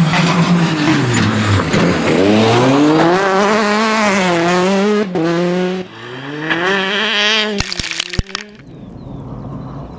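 Rally car engine revving hard, its pitch dipping and climbing through gear changes, with a short break between shifts. Several sharp cracks come near the end, then the sound drops away to a quieter background.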